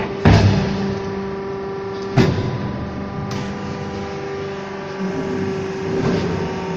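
Hydraulic fly ash brick press running with a steady hum. Two sharp metal clanks come just after the start and about two seconds in, as the press head and mould lift off the pressed bricks.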